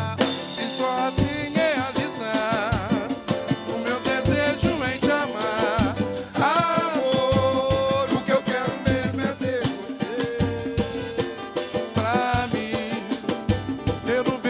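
Live samba band music: strummed string instruments over drum kit and cymbals, with a dense, fast rhythm and a wavering melody line on top.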